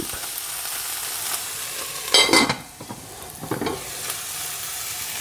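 Chopped escarole sizzling as it sautés in olive oil in a pan, with a steady hiss. A utensil stirs and scrapes against the pan twice, about two seconds in and again a second or so later.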